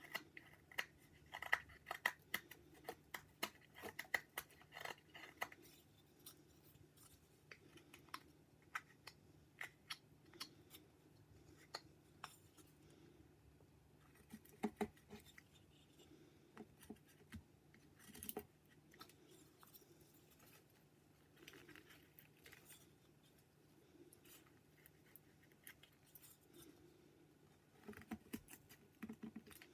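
Whittling knife slicing shavings off a small wood carving: faint, crisp cuts and scrapes, coming quickly during the first five seconds or so, then scattered single cuts with pauses, and a short run again near the end.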